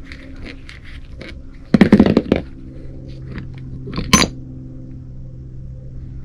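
Metal parts of a power steering pump clinking and scraping as it is taken apart by hand, with a short burst of clattering about two seconds in and a sharp clink around four seconds.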